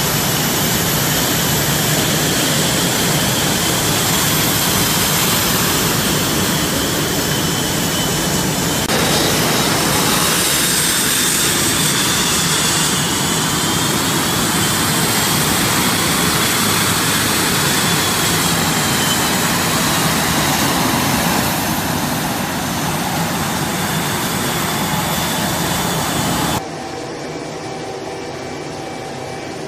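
F/A-18 Hornet jet engines running as the jets taxi close by: a loud, steady rush of noise with a high whine that wavers slowly in pitch. Near the end it cuts to a quieter steady hum.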